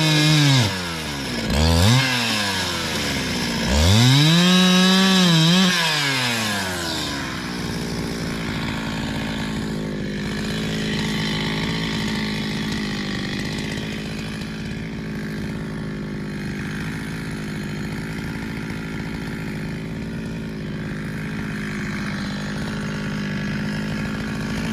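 Gas engine of a Harbor Freight portable bandsaw sawmill running at high speed, dropping off and revving back up twice, then settling to a steady idle about seven seconds in.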